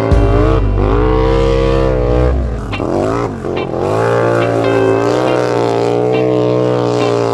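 Off-road vehicle engine revving hard, its pitch dipping and climbing again twice in the first few seconds, then holding at a steadier high pitch.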